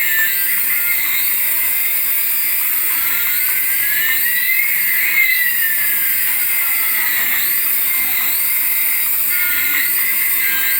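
Electronic sound effects from a battery-operated light-up toy: a high-pitched whine that loops about once a second, with one tone sliding up while another slides down in the middle.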